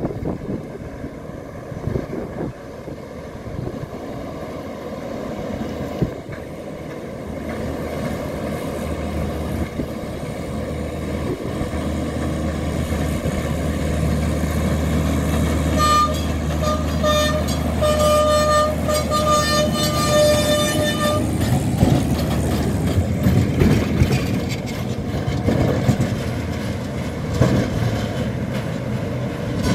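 Vintage electric tram No. 29 approaching on its rails, its running noise growing louder, with a steady low hum beneath. About halfway through, a high, broken tone sounds for about five seconds, then knocks and clicks from the wheels and rails as the tram passes close by.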